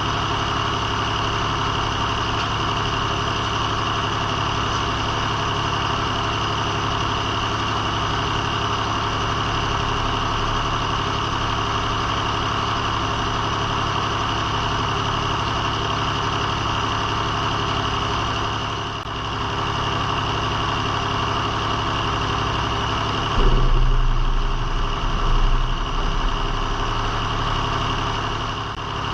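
Circle sawmill's power unit running steadily, with a louder, heavier low rumble for a few seconds near the end.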